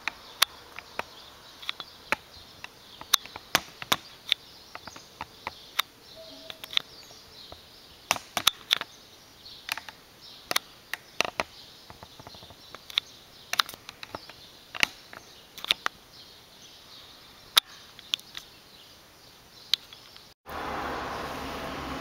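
Scattered sharp clicks and knocks at irregular intervals over a faint hiss. About twenty seconds in, after a brief dropout, a steady mechanical hum with a low tone starts: an industrial sewing machine's motor running.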